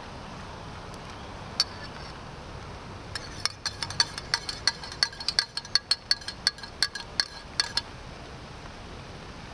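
Metal spoon stirring tea in a mug, clinking against its side: one clink, then a quick run of ringing clinks lasting a few seconds.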